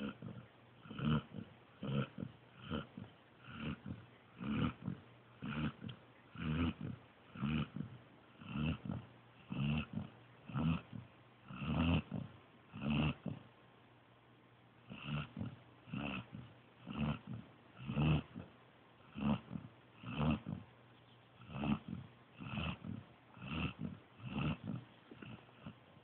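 Pointer puppy snoring in its sleep, a rhythmic snore about once a second with a short break about halfway through.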